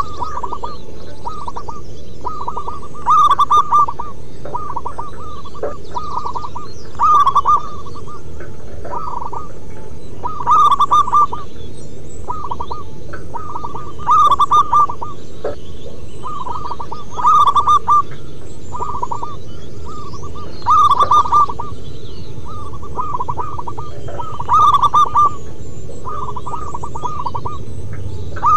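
Zebra doves (perkutut) cooing: repeated phrases of rapid staccato coo notes, the loudest phrase coming about every three and a half seconds with softer phrases in between.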